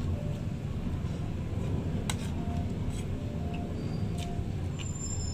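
Metal cutlery clinking against a ceramic plate a few times during a meal, over a steady low background rumble.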